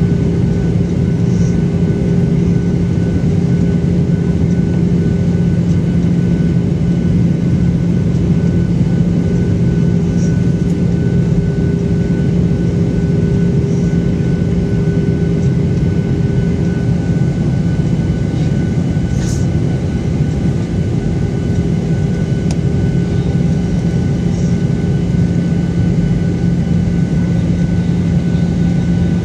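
Steady engine and air drone inside a jet airliner's cabin, heard at a window seat beside its turbofan engine during the descent to land, with an even hum under it.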